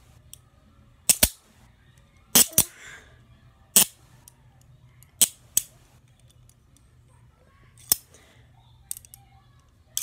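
Hinged handcuffs being snapped and worked by hand: about eight sharp clicks of the cuff's ratchet and bow, spaced irregularly, some in quick pairs.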